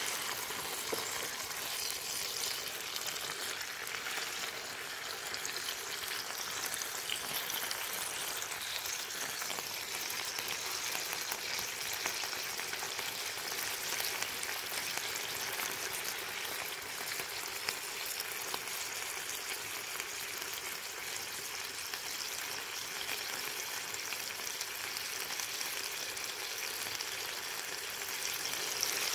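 Back bacon frying in sunflower oil in a Trangia frying pan: a steady crackling sizzle.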